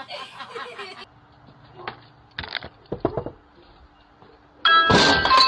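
In the first second a pug grumbles and whines in a talking-like voice. After a few soft knocks, near the end comes a sudden loud crash of shattering glass with clinking and ringing tones: a dog, excited by the doorbell, breaking glass.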